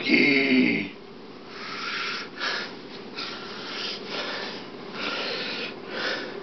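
A person's voice gives a short voiced cry, then breathes out in noisy, breathy puffs about once a second.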